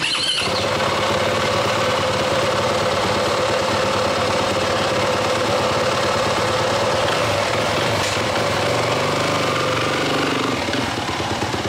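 Yamaha YZ450F motocross bike's single-cylinder four-stroke engine idling steadily and loudly.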